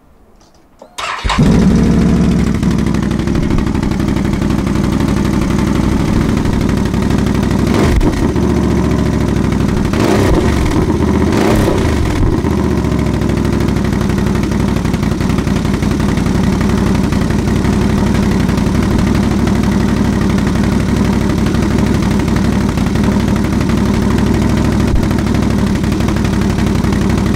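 2018 Can-Am Outlander XMR 850's Rotax V-twin, breathing through a newly fitted Big Gun EXO stainless slip-on exhaust, starts about a second in and settles into a steady idle. It is revved briefly a few times between about 8 and 12 seconds in, then idles on.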